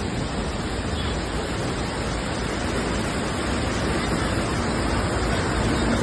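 Flash floodwater rushing across a flooded road, a loud, steady rush of noise with no let-up.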